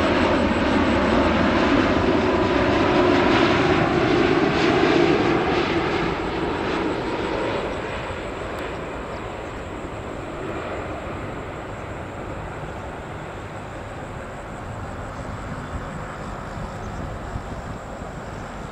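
Boeing 787-9 airliner on final approach passing low overhead: its jet engines are loud for the first six seconds or so, then fade to a steady distant rumble as it moves away.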